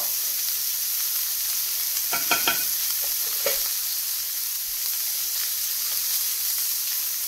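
Rib steak searing in a hot cast iron skillet under a splatter screen: a steady fat sizzle. About two seconds in, a spoon clinks a few times against the pan, with one more clink a second later.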